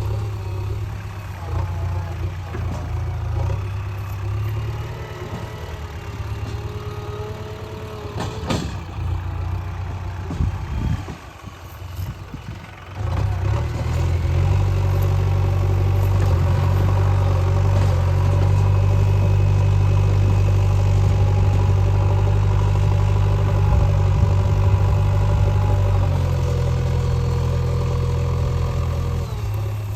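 JCB 3DX backhoe loader's diesel engine running under changing load. It drops lower for a couple of seconds near the middle, then runs louder and steady for most of the rest. A single sharp knock comes about a third of the way in.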